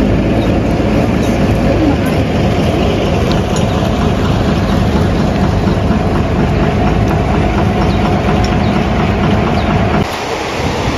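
Steady, loud rumble of a vehicle engine running, which drops off abruptly about ten seconds in, leaving a windy hiss.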